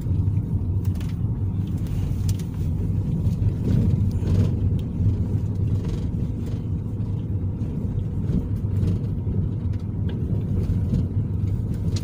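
Car heard from inside the cabin, driving up a hill on a dirt track: a steady low rumble of engine and tyres, with a few faint knocks from the rough surface.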